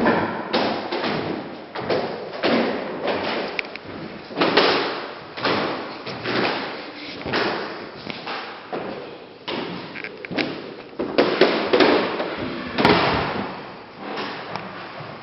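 Footsteps thudding on a hard floor, roughly one to two steps a second.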